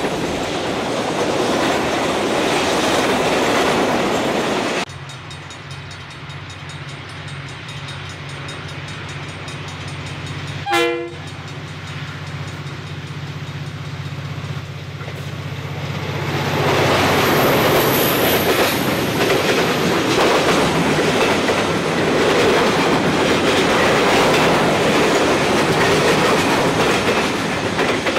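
Freight wagons rumbling and clattering past on the rails. Then the low, steady drone of an approaching diesel locomotive, with one short horn blast about 11 seconds in. From about 17 seconds the train's container wagons roll past loudly.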